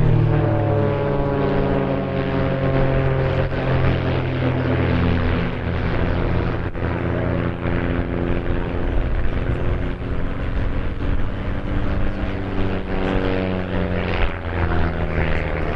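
Propeller-driven aerobatic biplanes' piston engines running loud overhead. The engine note slides down in pitch over the first few seconds, then rises and falls again near the end as the planes manoeuvre.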